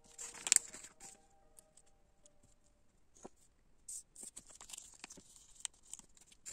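LEGO pieces being handled: a crisp rustle of plastic about half a second in, then scattered light plastic clicks and short rustles.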